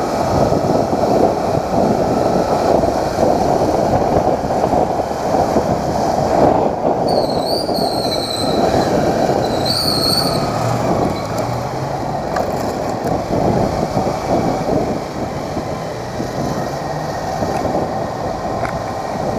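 Small motorcycle riding, with a steady rush of wind and road noise. Twice, about seven and ten seconds in, a short high wavering squeal: the rear drum brake's shoes squealing under braking.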